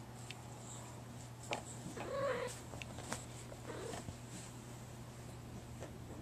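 Domestic cat purring steadily while rolling and rubbing against a hairbrush, with one short cat call about two seconds in and a few soft clicks.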